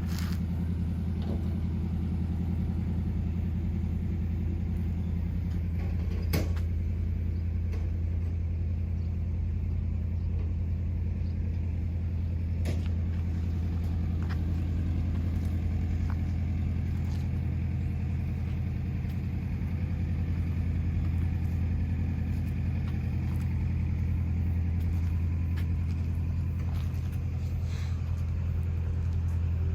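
An engine idling steadily at an even, unchanging pitch, with a couple of faint clicks.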